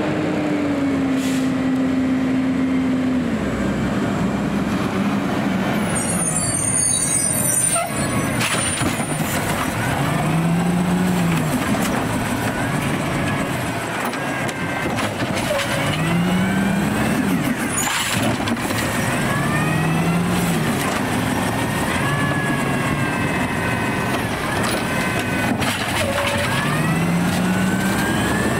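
Automated side-loader garbage truck at work: the engine revs up and falls back several times, a few seconds apart, as it drives the lifting arm's hydraulics, with a few sharp knocks in between.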